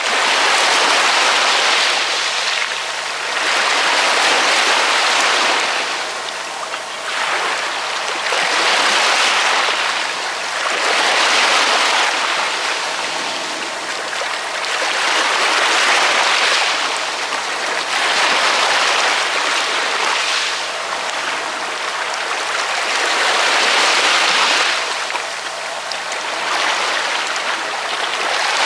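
Ocean waves breaking and washing onto the shore, a surge of hissing surf swelling and fading every four seconds or so.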